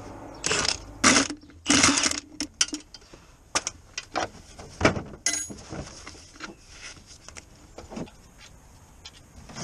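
Socket wrench on a long extension being worked on the gearbox bellhousing bolts: three short rasping bursts in the first two seconds, then scattered metallic clicks and knocks that thin out.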